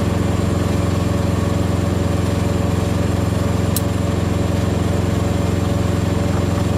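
Diesel engine idling steadily with an even low hum and a faint high whine above it, and one short click a little past the middle.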